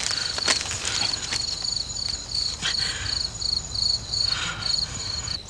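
Crickets chirping in an even, steady rhythm of about three high chirps a second, with a few brief rustles and clicks over them.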